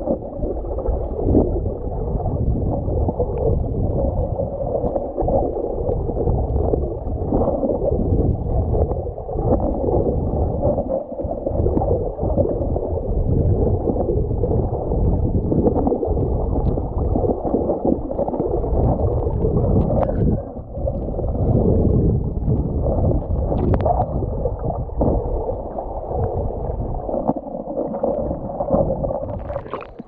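River current heard with the camera held underwater: a steady, muffled rush with no high end. Right at the end the camera comes up out of the water with a brief splash.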